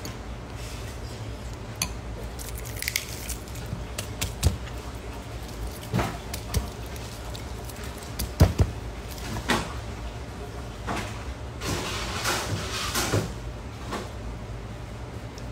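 Eating sounds: a fork clicking and scraping against a bowl, with scattered knocks of dishes and a short spell of rustling about twelve seconds in, over a steady low hum.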